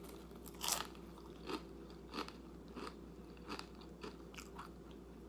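Close-up chewing of crunchy rolled tortilla chips, a crunch roughly every 0.7 seconds, the first loudest and the rest fading.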